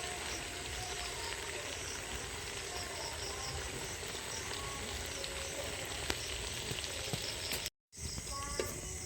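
Potato jalebi frying in hot oil, a steady sizzle that cuts out briefly near the end. Faint repeated chirps run over it.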